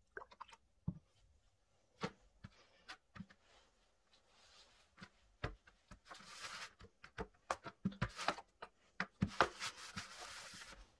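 Wet dyed gym chalk blocks being handled in a plastic tray: scattered taps and clicks, then a scraping, crinkly rustle about six seconds in and again near the end.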